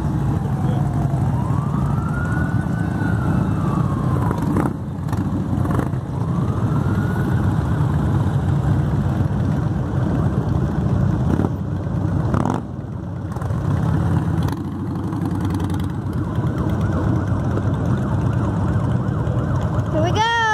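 An emergency-vehicle siren wails, rising and falling slowly through the first several seconds, over a steady low rumble of passing motorcycle and car engines. A quick warbling siren yelp sounds right at the end.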